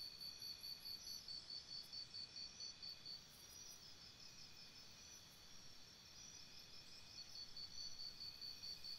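Faint high-pitched insect chirping, like crickets, pulsing about four times a second. It fades in the middle and picks up again near the end.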